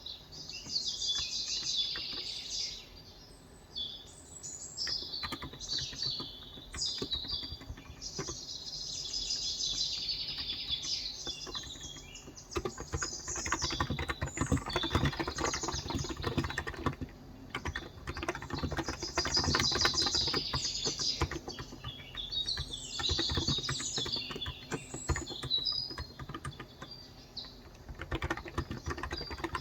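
Typing on a COX Endeavor electrostatic capacitive tenkeyless keyboard with 35 g switches: quick runs of soft key strokes, busiest in the middle and near the end. Birds chirp and sing throughout.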